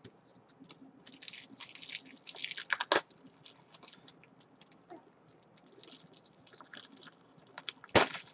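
Trading cards and their plastic sleeves being handled: patches of crisp rustling, with a sharp click about three seconds in and a louder one near the end.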